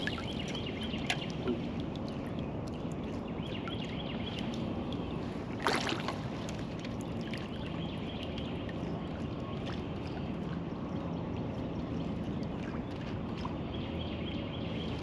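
Water washing steadily around a kayak sitting on calm water, with small ticks and knocks from the boat and tackle. One louder burst of noise comes about six seconds in.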